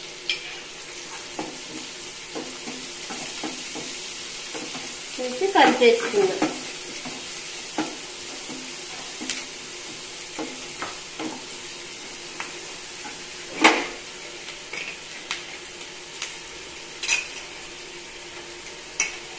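Onions and green chillies frying in oil in a nonstick kadai with a steady sizzle, stirred with a wooden spatula: scattered scrapes and taps on the pan, a short louder burst about six seconds in and a sharp knock about two-thirds of the way through.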